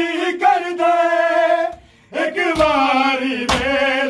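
Men's voices chanting a noha, a Shia lament, in long held notes. After a brief pause the chant resumes, and near the end two loud open-hand slaps on bare chests land in unison about a second apart, the rhythmic beat of matam.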